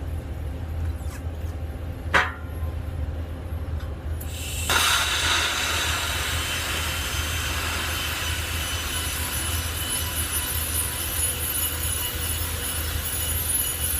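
TIG welding arc on 316L stainless steel pipe: a steady hiss with a faint high whine starts about four seconds in and holds, over a low hum. A single sharp click about two seconds in.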